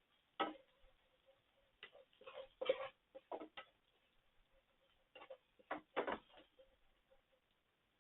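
Scattered light clicks and knocks at irregular spacing from cooking in a frying pan while petai and anchovies are fried, a few with a short metallic ring.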